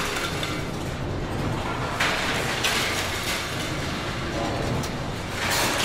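Industrial ambience in the basement scrap area of a General Motors stamping plant: a steady low machinery rumble, with louder noisy bursts from the machinery about two seconds in and again near the end.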